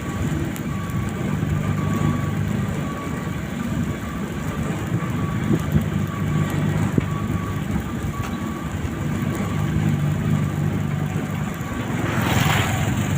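Road roller's diesel engine running steadily while it does breakdown rolling, the first compaction pass over freshly laid hot asphalt. A brief hiss near the end.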